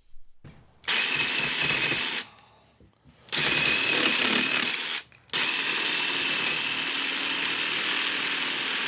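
Black & Decker 20V cordless jigsaw running and cutting half-inch PVC pipe with a blade not meant for PVC. It runs in three bursts with a steady high whine, stopping briefly twice, and the third burst carries on to the end.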